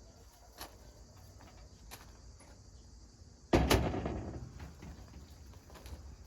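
Crickets chirring steadily in a high band, with faint scattered ticks and rustles. About three and a half seconds in comes a sudden loud crack and rustle that fades over about a second.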